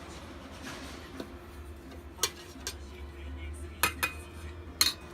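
A handful of sharp clinks and knocks of small hard objects, irregularly spaced through the second half, one leaving a brief ringing tone, over a low steady hum.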